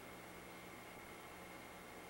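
Near silence: a steady hiss with a faint low hum and a thin steady high tone, the noise floor of the recording.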